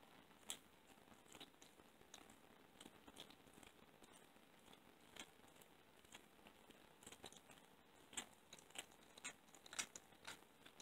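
A cat chewing a raw Cornish hen leg with its back teeth: faint, irregular crunches and clicks of teeth on bone and gristle, coming thicker and louder in the last few seconds.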